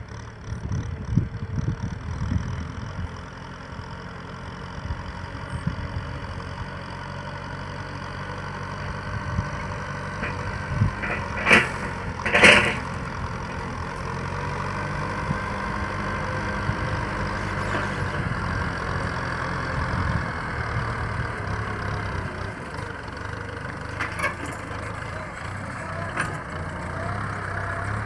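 Kubota M6040 SU tractor's four-cylinder diesel engine running steadily under load as it pulls a disc plough through dry rice-field soil, growing louder as it comes closer. Two brief loud sounds stand out about halfway through.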